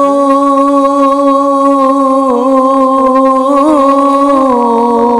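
Man singing a Punjabi Sufi kalam, holding one long drawn-out note. The note wavers briefly near the end, then steps slightly down in pitch.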